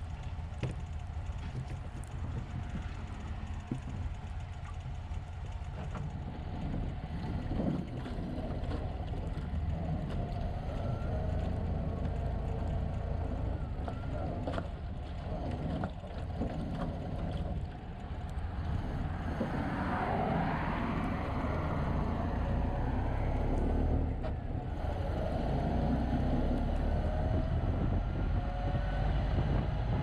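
1929 Ford Model A pickup's four-cylinder engine and drivetrain pulling the truck along, with a rising whine several times as it picks up speed and scattered knocks and rattles. Heard from inside the noisy, drafty cab with wind noise over the microphone.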